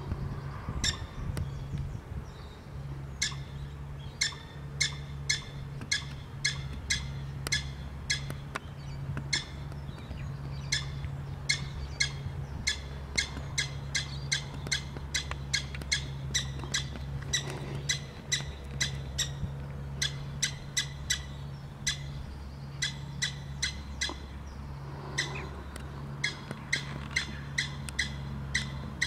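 Prairie dog giving a long series of short, sharp chirping barks, about two a second with brief pauses, over a steady low hum.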